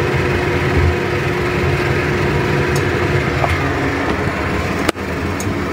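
Coca-Cola fizzing and bubbling as it heats around chicken wings in a stainless steel frying pan, over a steady low hum. The sound breaks off briefly about five seconds in.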